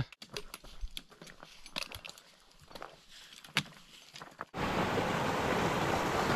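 Hiking boots crunching and trekking-pole tips clicking on a rocky, gravelly trail: quiet, irregular taps. About four and a half seconds in, this cuts suddenly to a steady rushing noise.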